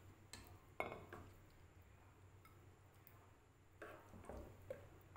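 Mostly near silence, with a few faint, soft clicks of a ladle against the pot and a glass serving dish as thick kheer is scooped out, a cluster near the start and another near the end.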